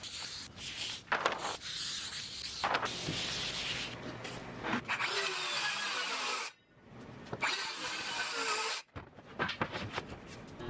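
Rubbing and scraping on wood, in short pieces that cut off and start again abruptly.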